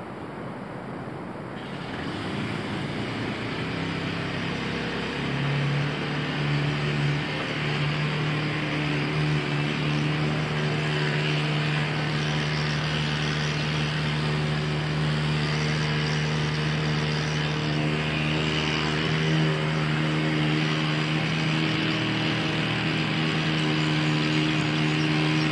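A neighbour's engine-driven machine running steadily, a constant mechanical hum that builds up over the first few seconds and then holds.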